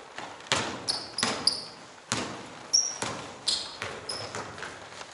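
A basketball bouncing on an indoor court in irregular thuds, with several short high-pitched sneaker squeaks on the floor in between.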